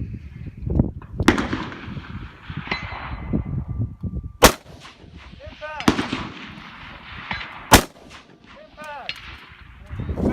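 Precision rifle shots: two loud, sharp cracks a little over three seconds apart, with quieter knocks before and between them.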